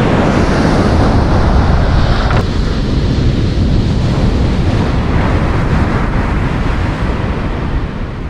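Ocean surf breaking on a sandy beach, mixed with heavy wind buffeting the microphone; the mix changes abruptly about two and a half seconds in.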